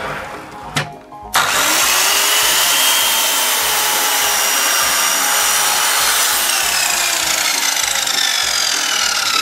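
Electric slide compound miter saw (PA SMS-190T) starting suddenly about a second and a half in and cutting through an old wooden deck board. It runs on loudly with a high whine that slowly falls in pitch in the second half.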